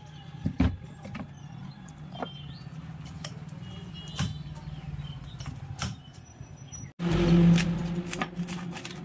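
Scattered metallic clicks and scrapes of a screwdriver working at the front end of a hammer drill being dismantled, over a steady low hum. The hum jumps louder suddenly about seven seconds in.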